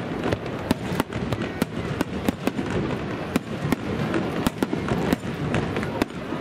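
Aerial fireworks shells bursting in quick, irregular succession: sharp bangs about three a second over a continuous din.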